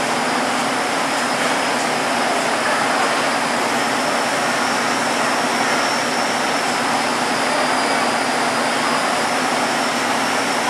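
Passenger train standing at a station platform with its machinery running: a steady hiss with a faint high whine.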